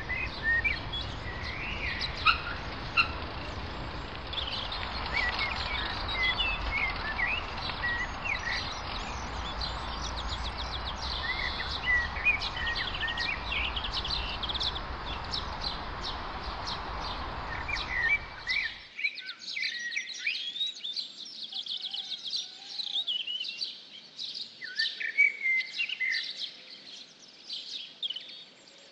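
Woodland songbirds chirping and singing, many short calls and trills overlapping. A steady rushing noise runs under them and cuts off suddenly about two-thirds of the way through, leaving only the birdsong.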